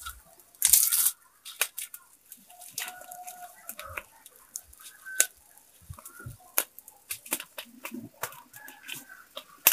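Open fire of dry palm fronds and twigs burning, crackling with many sharp pops and a louder rush of crackling about a second in. A few short clucking calls come in now and then.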